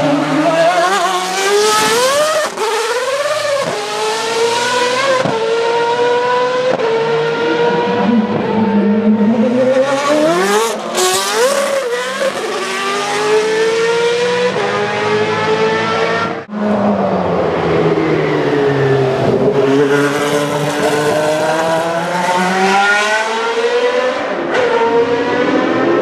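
Formula 1 car engines revving high as the cars pass, the pitch repeatedly climbing and falling with throttle and gear changes. The sound breaks off abruptly a few times where one pass cuts to the next.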